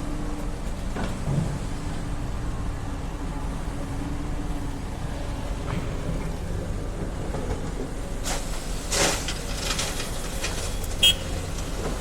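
Hydraulic excavator diesel engine running steadily. Two noisy bursts come about eight and nine seconds in, and a short, sharp high-pitched sound comes near the end.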